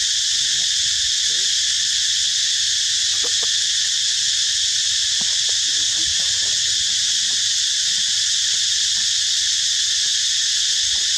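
Steady, loud high-pitched drone of an insect chorus. Faint short sounds come now and then beneath it.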